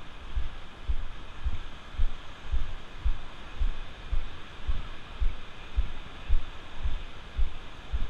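Footsteps of a person walking on firm wet sand, picked up as low thumps through the camera, about two a second in a steady walking rhythm, over a continuous hiss of surf.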